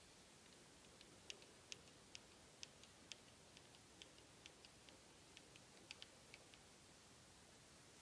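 About twenty faint, sharp clicks at uneven intervals against near silence, stopping a little past the middle.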